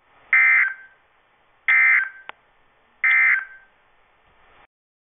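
Emergency Alert System end-of-message SAME data tones from a NOAA weather radio's speaker: three short, identical buzzy digital bursts about a second and a half apart, signalling that the flood warning broadcast has ended.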